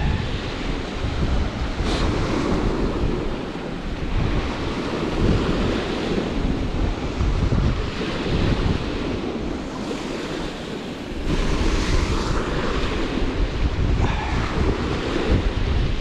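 Strong wind buffeting the microphone in gusts, with a deep rumble, over waves washing onto the lake shore.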